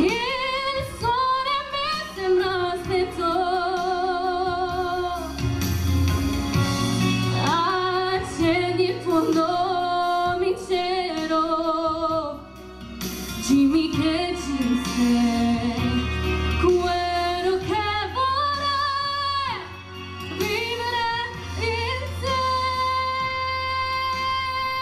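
A woman singing a melody into a microphone over backing music, her held notes wavering with vibrato; she holds one long, steady note through the last few seconds.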